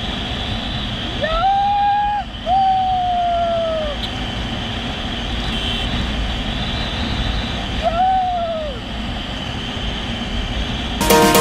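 Wind rushing over the microphone and road noise from a motorcycle cruising along a highway. Three long hooting tones cut through, each sagging in pitch as it ends: two back to back about a second in, a third about eight seconds in. Music starts at the very end.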